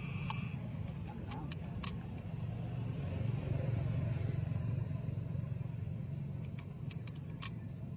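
Steady low rumble of motor traffic, swelling for a second or so about three and a half seconds in, with a few faint sharp clicks scattered through it.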